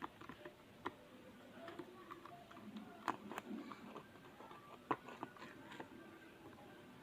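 A stirrer clicking and scraping against a container while a mix of white glue and liquid soap is stirred, with a few sharp taps, the loudest about three seconds and five seconds in.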